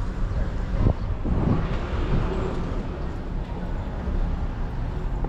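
City street traffic: vehicles running past, with a sharp knock about a second in and a swell of noise soon after as one goes by, over a steady low rumble.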